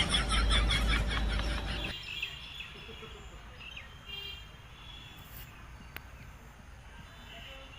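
Birds chirping in a fast, dense run of about eight short calls a second, cutting off suddenly about two seconds in. After that only a low background remains, with a few faint chirps and a single click.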